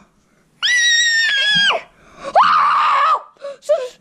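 A child's high-pitched screams: after a short silence, one long shrill scream about a second long that drops in pitch as it ends, then a second, lower and rougher scream, followed by a few short yelps.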